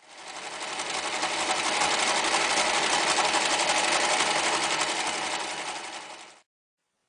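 Toyota SL3304 overlocker running at speed with a fast, even mechanical rattle. It builds up over about a second, holds steady, then winds down and stops about six seconds in.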